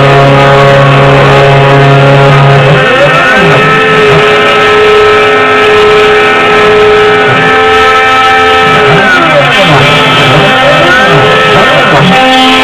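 CNC-3040AL desktop CNC machine's stepper motors whining, the pitch rising, holding and falling again several times as the axes speed up and slow down, over steady tones from the machine.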